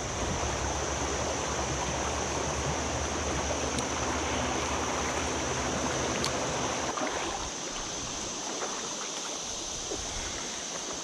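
Shallow river water rushing steadily over a rocky riffle. The sound eases about seven seconds in.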